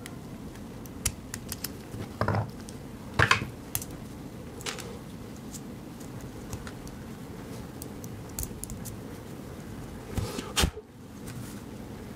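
Light clicks and taps of small metal parts as replacement ball bearings are fitted onto a jog-wheel magnetic encoder's shaft and the shaft is twisted by hand. Louder clicks come about two, three and ten seconds in. The bearings are making noise, which the repairer puts down to cheap clone bearings.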